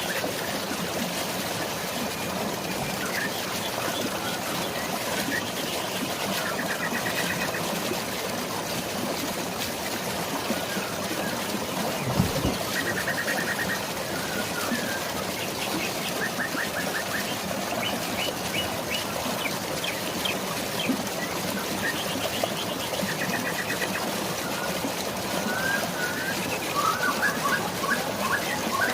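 Steady rush of falling water and rain with birds singing, several short rapid trills repeating through it and a flurry of chirps near the end. A brief low thump about twelve seconds in.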